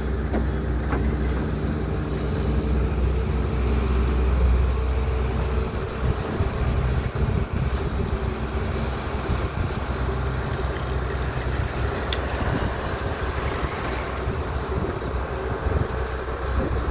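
Long-reach excavator's diesel engine running steadily as it swings its arm and dredges, with wind buffeting the microphone.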